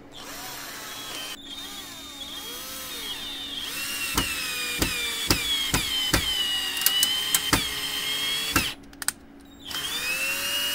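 Hyundai 12-volt cordless drill-driver running from a computer ATX power supply in place of its battery, driving a screw into a wooden beam. The motor whine rises and falls in pitch with the trigger and the load, with a series of sharp clicks. The drill stops about nine seconds in, then starts again with a rising whine.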